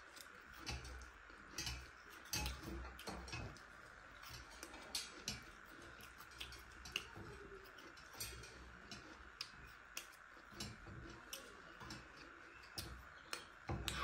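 Faint, irregular small clicks and soft crunches of people chewing and eating quickly, over a faint steady hum.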